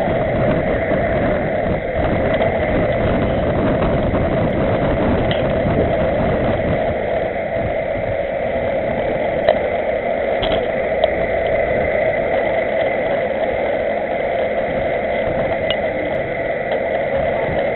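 Steady rush of wind and road rumble from a camera mounted on a bicycle rolling along asphalt in a group of cyclists, with two short sharp clicks about halfway through.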